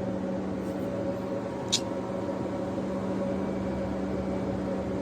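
A motor running steadily with an even hum. A single sharp click comes a little under two seconds in.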